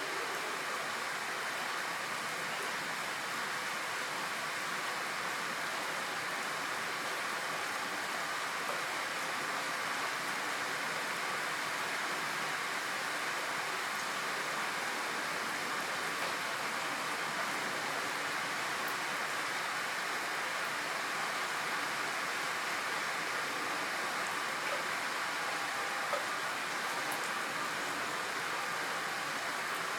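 Steady rain falling, an even hiss that holds at one level, with a few faint ticks.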